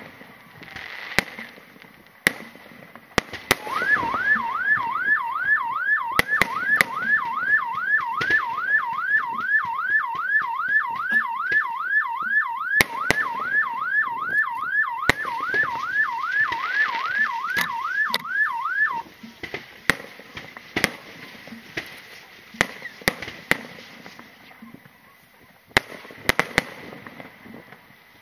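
Aerial fireworks going off in sharp bangs and crackles. From about four seconds in until two-thirds of the way through, an electronic alarm wails over them in rapid repeating pitch sweeps, about two a second, then stops abruptly. The bursts grow sparser near the end.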